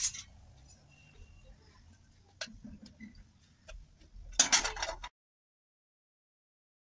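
A few light clicks and taps, then a short clatter of a steel ladle striking a metal kadhai as oil is ladled in, about four and a half seconds in. The sound then cuts off suddenly to complete silence.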